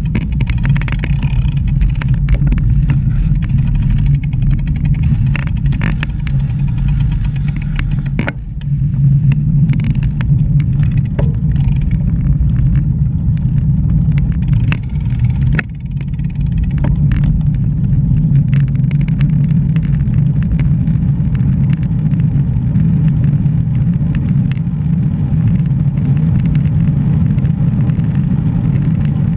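Steady low rumble of wind and road noise on a GoPro's microphone while cycling, with scattered light clicks and ticks.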